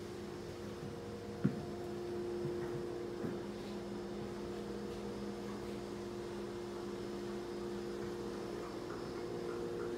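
Steady electrical hum made of several constant tones, with a single sharp knock about a second and a half in.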